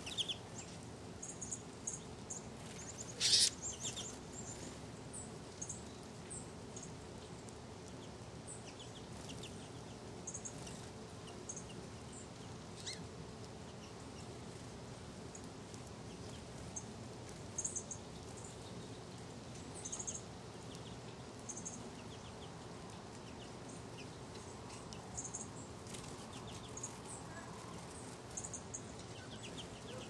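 Small finches chirping: short, high peeps scattered every second or two, with one louder call about three seconds in, over a low steady hum.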